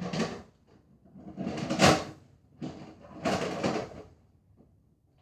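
Nerf foam-dart blaster being handled: three sliding, scraping plastic sounds, each about a second long, the loudest in the middle.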